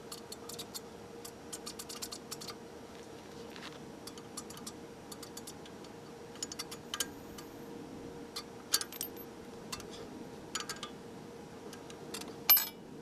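Short, irregular runs of ratchet-wrench clicks and metal tool clinks as bolts on the rear trailing arm bracket are worked, with one louder clink near the end, over a faint steady hum.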